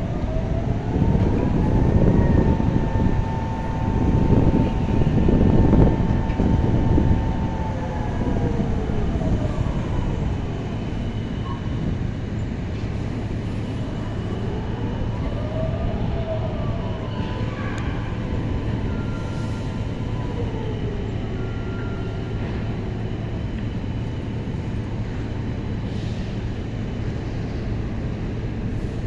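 An engine rises in pitch, holds, then drops back, twice, over a steady low drone.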